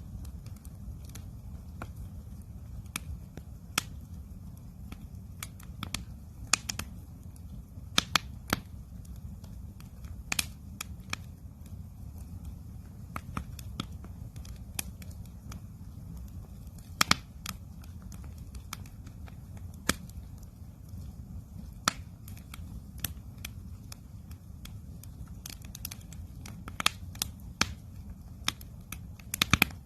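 Wood campfire crackling: irregular sharp pops and snaps, a few louder ones, over a steady low rumble.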